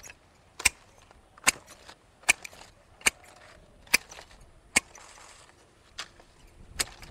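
Hand pruning secateurs snapping shut again and again, a sharp snip a little under once a second, eight in all.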